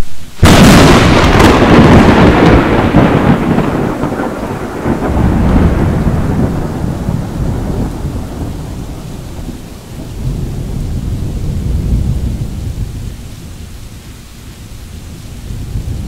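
Thunder from a close lightning strike: a sudden sharp crack about half a second in, then a long low rumble that fades and swells again several times.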